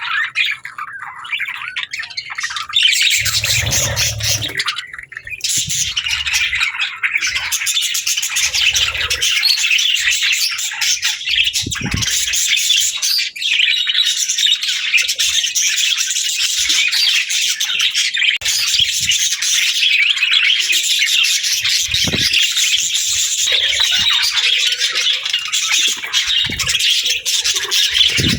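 A flock of budgerigars chirping and chattering without pause, a dense high twittering mixed with squawks, with now and then a low thud.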